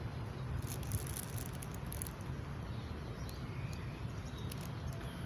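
Outdoor ambience: a steady low rumble with a few faint bird chirps about three and a half seconds in, and some light high clicks in the first two seconds.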